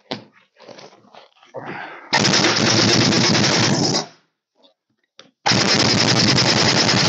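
Large inch-drive pneumatic truck impact wrench hammering in two bursts, the first about two seconds long and the second starting about a second and a half after it, on a big nut of a backhoe hydraulic cylinder. The nut is not breaking loose.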